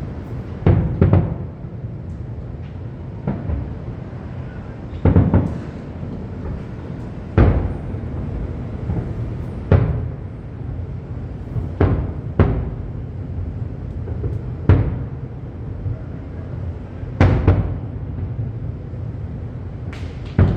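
Aerial fireworks bursting: about a dozen sharp booms, some in quick pairs, one every second or two, each echoing briefly over a continuous low rumble.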